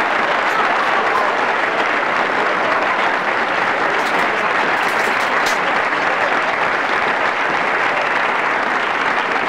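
Steady sizzling from a large pot of hot liquid on the stove, with a few faint clicks about halfway through.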